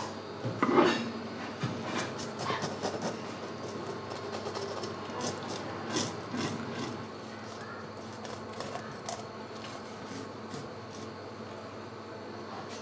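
Hand fish scaler scraping scales off a fish on a wooden cutting board: a run of quick rasping strokes with clicks, loudest about a second in, thinning out after about seven seconds.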